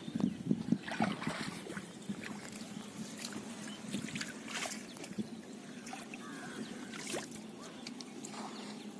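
Water trickling and dripping off a cast net as it is hauled up out of the water beside a wooden boat, with scattered small splashes and clicks.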